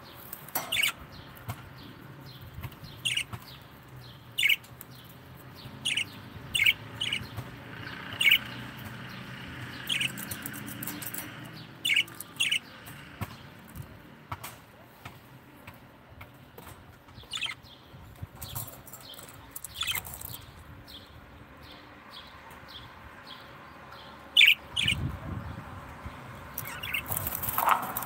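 Caged lovebirds giving short, sharp chirps, one every second or two, with a louder chirp near the end. A low thump follows just after it.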